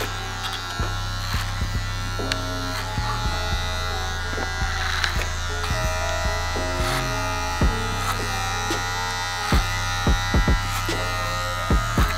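Electric hair clippers buzzing steadily as they cut short hair at the nape, over background music.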